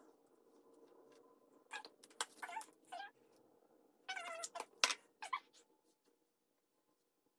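A cat meowing several times, in two short runs about two and four seconds in.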